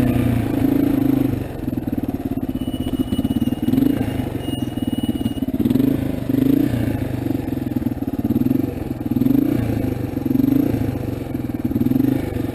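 Small 225 cc motorcycle engine pulling uphill over rough ground, the throttle opening and easing off about once a second.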